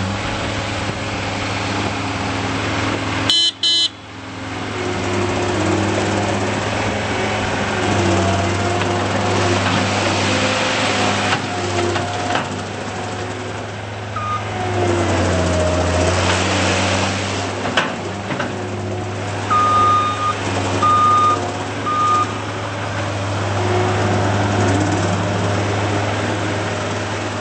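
John Deere 332D skid steer's turbo diesel engine running steadily under work, its pitch shifting at times. There is a brief loud burst about three seconds in. Near the end the machine's backup alarm beeps three times.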